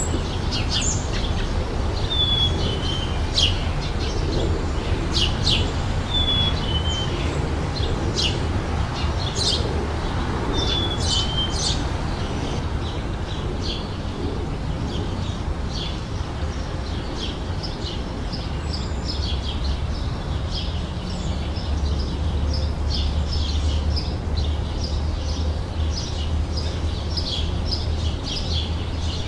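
Songbirds singing and chirping. A short falling two-note phrase repeats every few seconds over quick high chirps, and the chirping grows denser and faster in the second half. A steady low rumble runs underneath.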